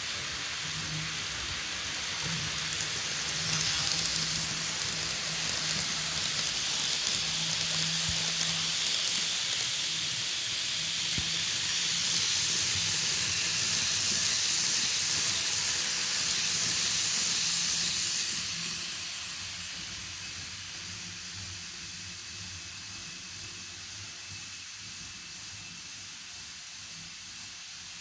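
N gauge model trains running past on the layout track: a steady hissing rattle with a low hum under it. It swells about three seconds in, stays loud until roughly nineteen seconds, then fades.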